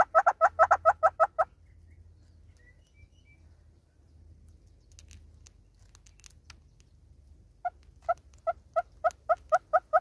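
Southern red-billed hornbill giving its clucking call: a fast run of repeated clucks that breaks off about a second and a half in, then after a pause starts again with single, spaced clucks that quicken into a rapid series near the end.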